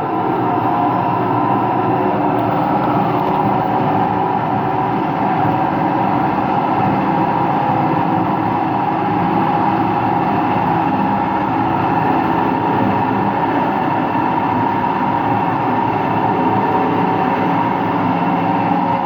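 Empty washing machine running its rinse-and-spin cycle: a loud, steady rumble with a constant whine on top, the noise of bad bearings, which the owner thinks could be the drum bearings, the motor bearings or both.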